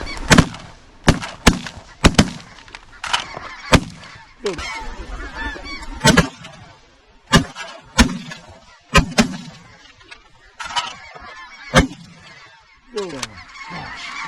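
Two pump shotguns firing in quick, uneven succession, about a dozen shots, as two hunters shoot into a flock of landing Ross's geese. Geese call continuously underneath.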